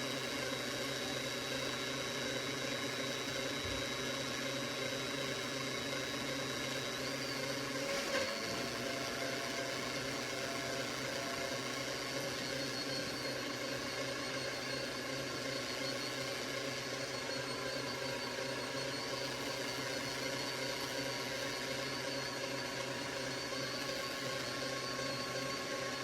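Steady hum and hiss with a few faint held tones, and one brief click about eight seconds in.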